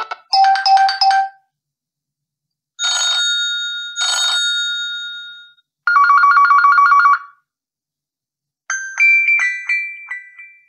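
A run of separate electronic ringtones or alert tones, each cut off by a silent gap: a quick beeping melody, two chime tones that fade away slowly, a fast trilling ring like a phone, then a few plucked chime notes near the end.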